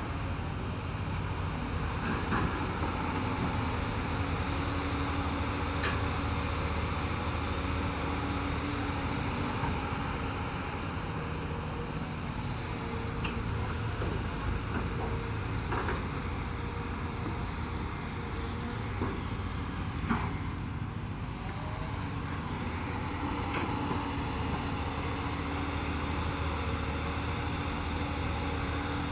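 Hyundai crawler excavator's diesel engine running steadily under load as it digs, with other excavators and a bulldozer working behind it. A few sharp knocks sound now and then.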